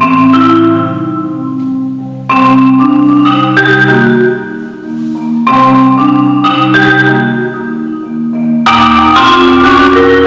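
Music of struck, pitched percussion notes that ring and fade, played in phrases with loud new entries about two, five and a half, and eight and a half seconds in.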